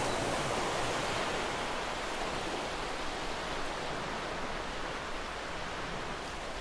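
A steady, even rushing noise that slowly grows quieter.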